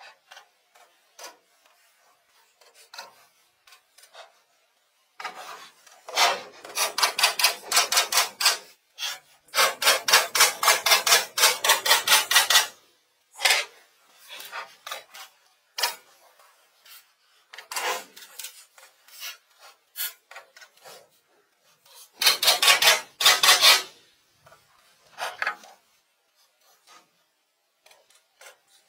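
Wood being abraded by hand: quick back-and-forth scraping strokes, about six a second, in three bouts, about five, ten and twenty-two seconds in, with faint scattered scrapes between.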